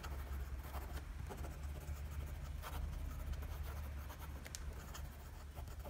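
Fine steel nib of a Wingsung 3008 piston fountain pen scratching faintly across Rhodia grid paper in quick, fast handwriting, a run of short pen strokes over a low steady hum.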